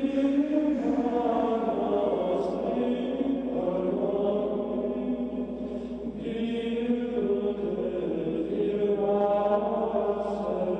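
Benedictine monks chanting the Vespers office, slow plainchant of long held notes sung together.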